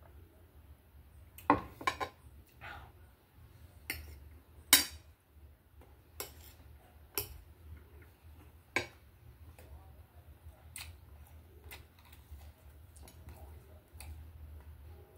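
Fork and knife clinking and knocking against a plate as food is cut and picked up: about a dozen sharp clicks at irregular intervals, the loudest about a second and a half, two seconds and nearly five seconds in, over a low steady hum.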